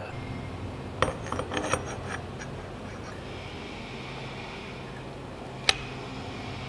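Steel locker cam gear and differential carrier clinking and rubbing as the gear is worked into place by hand: a cluster of light clicks about a second in, a soft rubbing, then one sharp click near the end.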